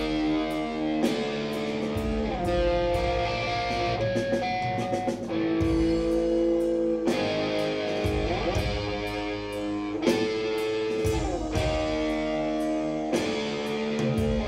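A heavy metal band playing live: electric guitar holding chords that change every second or so, with sliding pitch changes between some of them, over a low bass and drums.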